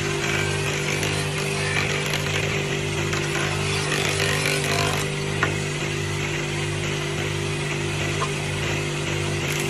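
Electric jointer (surface planer) running steadily as a wooden board is fed across its cutterhead: a constant motor hum with a slow low pulse about twice a second under a dense shaving hiss. One sharp tick about five and a half seconds in.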